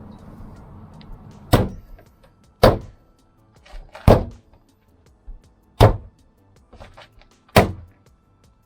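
Five sharp knocks, one to two seconds apart, on the plastic door trim moulding of a Toyota Land Cruiser 120 as it is worked onto its door panel clips.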